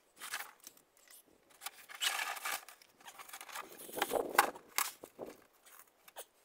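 Irregular scraping and rustling of a silver-faced insulation board being pushed up against the floor joists, with a few sharp knocks. The loudest bursts come about two and four seconds in.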